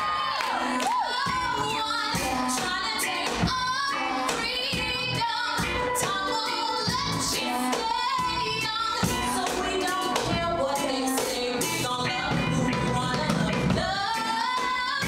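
Live pop song: several women singing together over a band with a steady drum beat.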